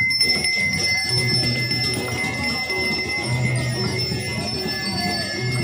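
Bells ringing steadily together with music, and a low tone that comes back about every two seconds.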